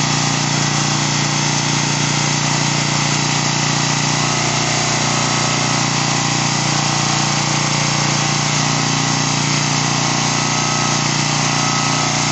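Electric hospital bed's actuator motor running steadily as it lowers the backrest section, worked from the hand pendant: a constant mechanical hum with no breaks.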